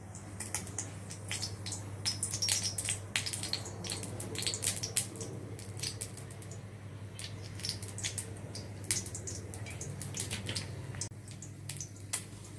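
Olive oil poured into a hot wok, crackling and spitting in quick irregular pops. The pops are thickest in the first five seconds and thin out after, over a steady low hum.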